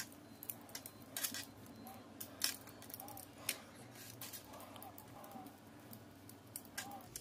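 Metal double-pointed knitting needles clicking and tapping against each other as stitches are worked, a scatter of light, irregular clicks.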